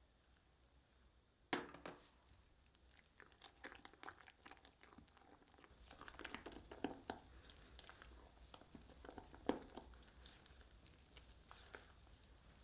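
Silicone spatula folding thick, wet cake batter in a glass bowl: irregular squelches and scrapes against the glass, with a sharp knock about a second and a half in and another near the end.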